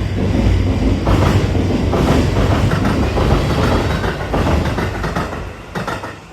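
Sanyo Electric Railway Aboshi Line train passing over the level crossing, its wheels clacking over rail joints in repeated knocks above a heavy rumble, which falls away sharply near the end.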